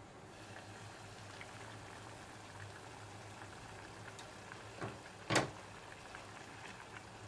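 Curry simmering in a pot: faint bubbling and small pops over a low steady hum, with two short sharp clicks about five seconds in, the second louder.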